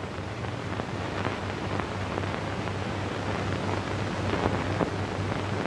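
Surface noise of an old film soundtrack: a steady hiss with scattered faint crackles and a low hum.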